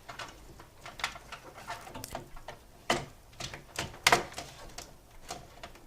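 A run of short plastic clicks and knocks, the loudest about three and four seconds in: a power-supply cable connector being handled and pushed home into the motherboard's power socket.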